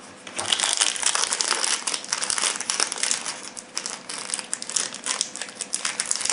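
Clear plastic sleeve crinkling irregularly as it is handled and a small folding knife is worked out of it, starting about half a second in.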